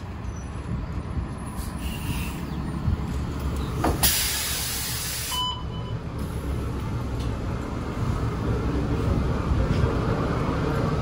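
Gillig Low Floor city bus idling with a steady low rumble at the stop. About four seconds in, its air system lets out a loud hiss of compressed air lasting about a second and a half, followed at once by a short beep.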